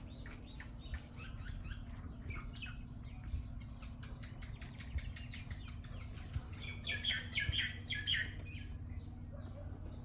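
Birds chirping: many short, high chirps, busiest and loudest about seven to eight seconds in, over a steady low hum.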